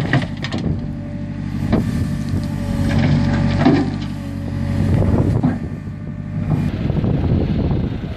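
Backhoe loader's diesel engine running steadily under load while the rear bucket digs a roadside ditch and dumps the earth, with scattered knocks and clatter of stones and soil.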